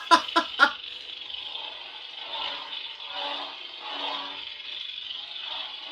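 Neopixel lightsaber's electronic hum playing from its built-in speaker, with a few sharp effect sounds in the first second and swelling swing sounds as the saber is moved.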